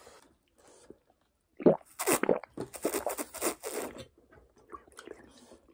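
Close-up eating sounds: crunching and chewing on spicy chicken wings, in a burst of loud, irregular crunches from about a second and a half in to about four seconds, then fainter ones.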